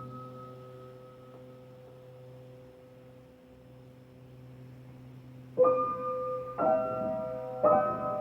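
Background keyboard music, piano-like: a held chord fades for about five seconds, then new chords are struck about once a second.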